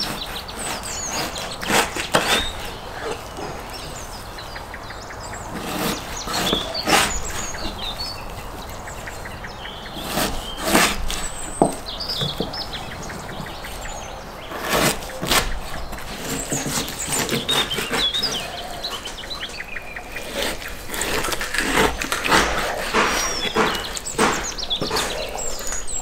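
Knife cutting raw beef tail into pieces at the joints on a plastic cutting board, with irregular knocks and taps of the blade and meat against the board. Birds chirp faintly in the background.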